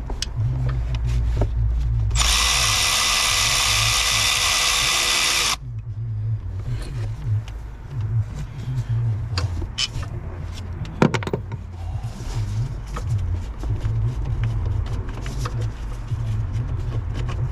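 A handheld power tool runs steadily for about three and a half seconds and then stops abruptly. Scattered clicks and one sharp knock follow.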